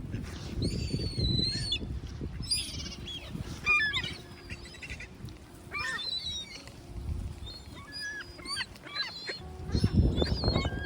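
Gulls calling over one another, many short bending cries, with strong wind buffeting the microphone in gusts near the start and again near the end.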